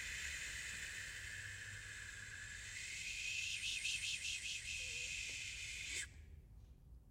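Vocal imitation of wind in the reeds: a man blowing a steady, breathy hiss through rounded lips, with a whistling note in it. It wavers in quick pulses about halfway through and stops abruptly about six seconds in.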